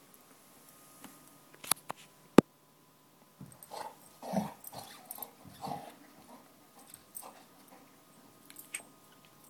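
Golden retriever chewing and gnawing on a hard black rubber Goughnuts Maxx ring toy. A few sharp clicks come about two seconds in, the last the loudest, and then a cluster of short chewing sounds in the middle.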